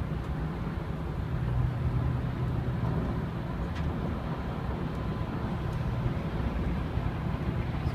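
Steady road and engine noise inside a car's cabin at freeway speed: an even low hum with tyre rumble.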